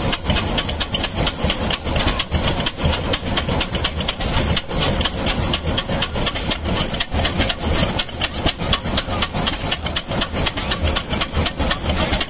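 1931 Wickström 10–12 hp stationary petrol engine running steadily, its exhaust beating in a quick, even rhythm.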